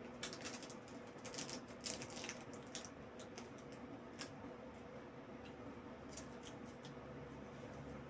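Light, irregular clicking and tapping as small PC-build hardware such as screws is handled. The clicks are busiest in the first three seconds and come only now and then after that.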